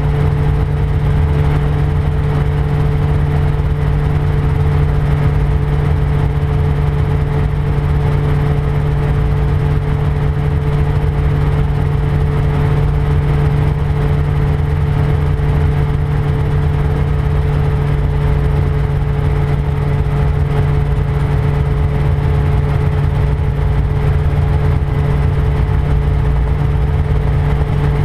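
Rotorway 162F kit helicopter in cruise flight, its engine and rotors running with a loud, steady, unchanging drone.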